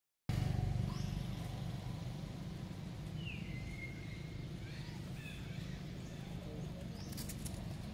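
Outdoor background ambience: a steady low rumble, with a few faint high chirps about three and five seconds in and a brief burst of faint clicking near the end.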